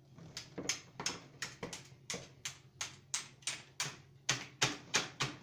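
A quick series of sharp taps on a desk, about three a second, getting louder toward the end, as from a small hard object such as a marker being banged on the desktop.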